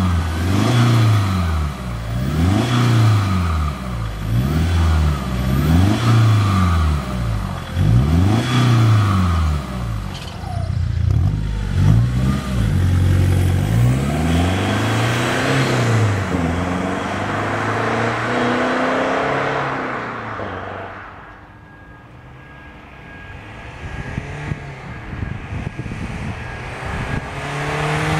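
Ford Mondeo ST's Cobra Sport stainless-steel performance exhaust, heard from behind the car: the engine is revved repeatedly at a standstill, rising and falling in pitch. About twelve seconds in the car accelerates away and fades into the distance, and near the end the exhaust note grows louder again as the car comes back.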